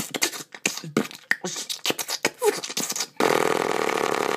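A person making war-film sound effects with the mouth: a quick run of sharp pops and clicks with a short falling whistle, then, about three seconds in, a continuous buzzing rattle.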